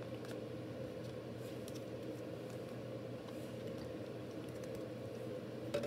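Steady low room hum, with a few faint clicks and a sharper click near the end.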